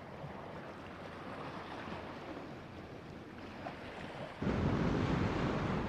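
Sea and wind noise: a soft, steady wash, then about four seconds in a sudden jump to much louder surf with wind on the microphone.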